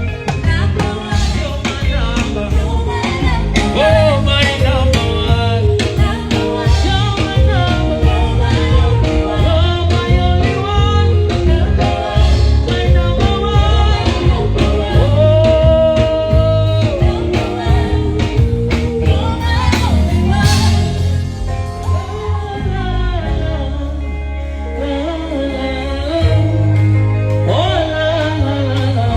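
A man singing a melody over a loud backing track with heavy bass and a steady drum beat.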